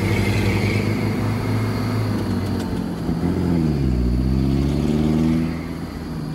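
A vehicle's engine running while driving, its revs dropping about three seconds in and climbing again soon after.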